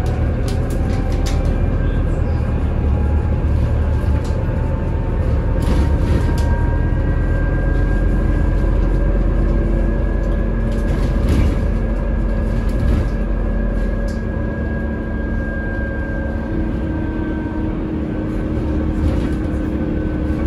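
Scania CN280UB city bus running on compressed natural gas through its 280 hp Scania OC09 five-cylinder gas engine, heard from inside the passenger cabin while under way: a steady low rumble with a faint whine that climbs slowly, and a few short rattles. The rumble eases slightly about two-thirds of the way through.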